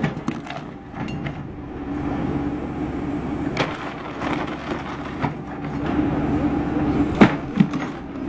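JCB backhoe loader's diesel engine running steadily while its bucket crushes car-audio speakers and their boxes, with sharp cracking and splintering breaks. The loudest crack comes a little past seven seconds in, followed by another just after.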